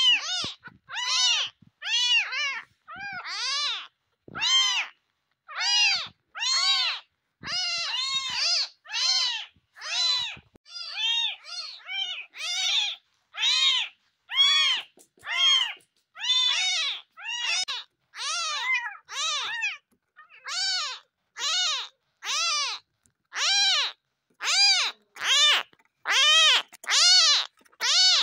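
Very young tabby kittens mewing over and over, short high-pitched cries that each rise and then fall, about one to two a second.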